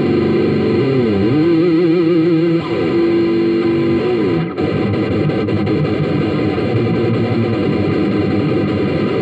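Electric guitar played through a Marshall CODE 50 modelling amp with distortion. A bent note wobbles with wide vibrato and is held, then slides down about four seconds in, and denser distorted playing follows.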